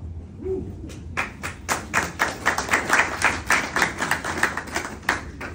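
A small audience clapping, the separate claps easy to pick out. The clapping starts about a second in and stops about five seconds in.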